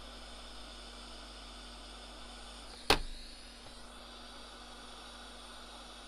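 Hot air station's blower hissing steadily at maximum airflow through a wide nozzle. About three seconds in comes one sharp knock: a motherboard tapped firmly against the desk to shake molten solder out of the SATA connector's through-holes.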